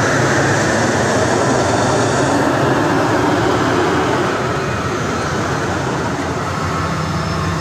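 Heavy trucks' diesel engines running steadily as they pass close by, chiefly a UD Trucks Quester box truck. Near the end a tanker truck passes right by as well.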